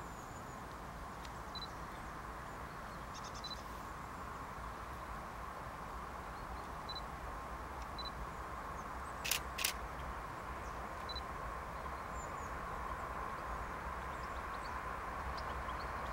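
Hyundai Rotem HRCS2 electric train approaching: a faint steady rumble with a hum that slowly grows louder as it nears. A quick pair of sharp clicks about nine seconds in.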